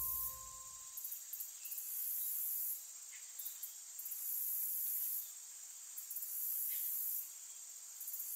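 Insects trilling in very high-pitched spells that come and go every couple of seconds over a steady faint hiss of rural ambience. A musical tone fades out about a second in.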